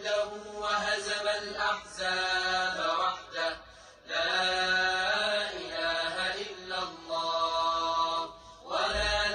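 Quran recitation: a man's voice chanting Arabic in long, held melodic phrases, with short pauses for breath between them.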